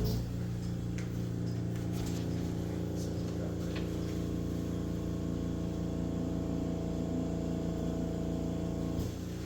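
Background music of sustained low chords, with a few faint knocks underneath.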